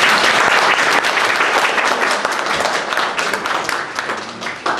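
Small audience applauding: a dense patter of many hands clapping that starts at once and dies down near the end.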